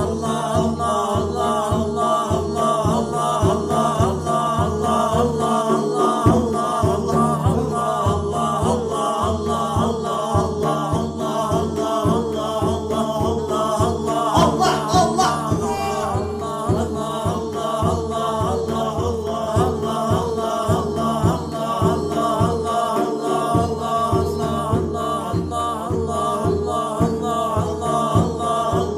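Devotional Islamic zikr chanting: voices sing and chant over a steady, evenly repeating deep beat.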